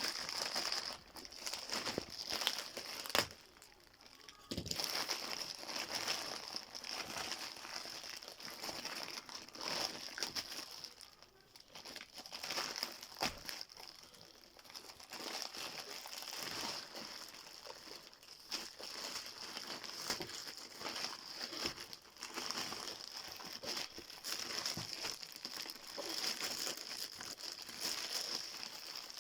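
Shoe packaging (wrapping paper or plastic) crinkling and rustling as it is handled and unwrapped, in irregular spells with sharper crackles here and there.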